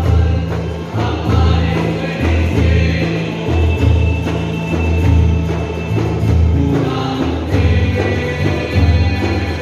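Background music with a choir singing over a strong, pulsing bass line.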